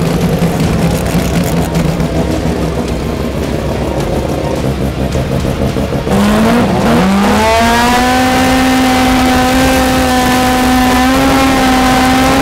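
A drag race car's engine runs unevenly for about six seconds, then launches at full throttle. The pitch jumps up and down a few times in quick steps, then holds high and steady as the car pulls down the strip.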